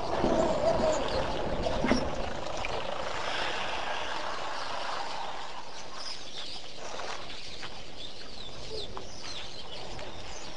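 Wild birds chirping over a steady outdoor hiss, with many short, repeated calls. In the first two seconds a louder, lower sound sits underneath, and a sharp knock comes about two seconds in.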